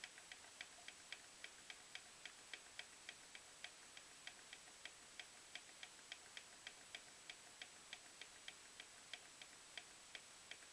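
Faint plastic clicking of a digital alarm clock's time-set button, about three clicks a second, as the minutes are stepped forward to reset the clock.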